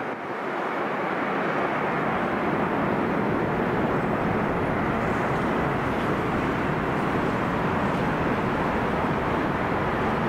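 Jet airliner engines on landing approach: a loud, steady noise that swells over the first second or so and then holds.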